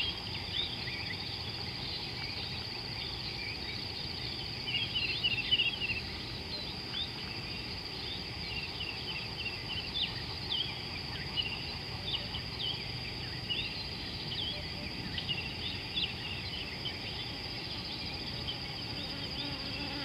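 African savanna ambience: a steady high insect drone with many short high bird chirps scattered through, in a brief flurry about five seconds in, over a low background rumble.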